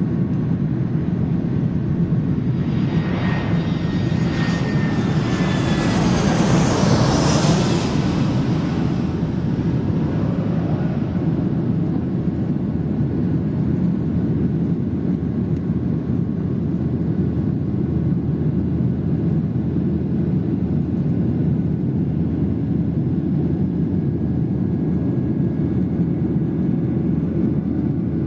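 Airliner taking off and passing by: a steady low engine rumble, with a high engine whine that swells and slides down in pitch as the aircraft goes past a few seconds in.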